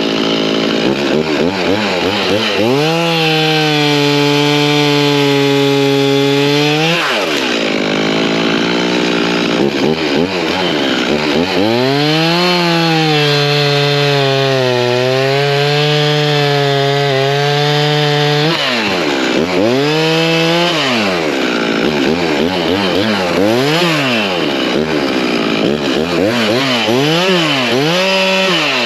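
Gas chainsaw cutting branches, held at high revs through two long cuts with the pitch sagging under load, and revved up and down in quick blips between cuts and near the end.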